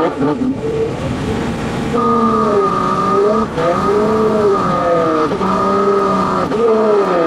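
Truck engine running under changing load, its pitch repeatedly sagging and climbing as the revs rise and fall, with a short break about three and a half seconds in.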